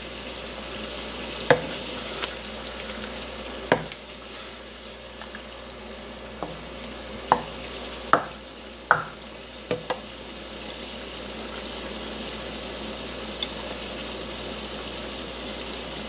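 Wooden spatula stirring thick curry gravy in a non-stick pan, knocking against the pan now and then, mostly in the first ten seconds, over a steady faint sizzle from the hot pan.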